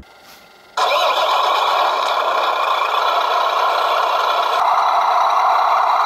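An RC scale MAN truck's electronic sound unit plays a diesel engine. The engine catches suddenly under a second in and then idles steadily. It sounds thin, with little deep rumble, as if from a small speaker.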